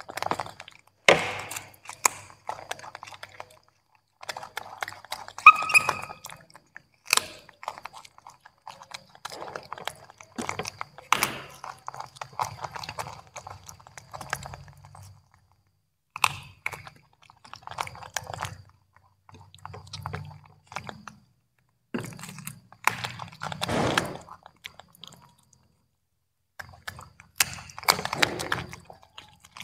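Young macaque monkeys chewing and crunching broccoli and carrot slices: irregular crunchy bites and wet chewing clicks, coming in uneven bursts with short pauses.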